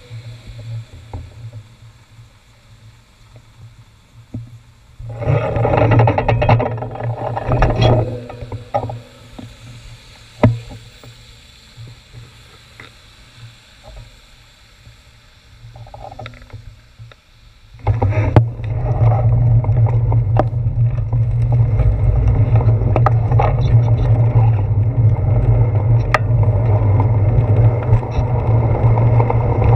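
Traffic passing a stopped bicycle on a wet road, with one louder vehicle going by about five seconds in. From about eighteen seconds in, steady wind and road rumble on a handlebar-mounted action camera's microphone as the bicycle gets moving.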